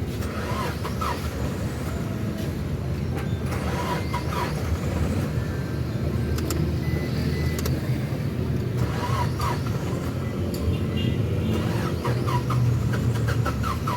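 Suzuki Wagon R engine idling unevenly with the air conditioning on, shaking and misfiring under the AC load, a fault that cleaned plugs and new ignition coils have not yet cured.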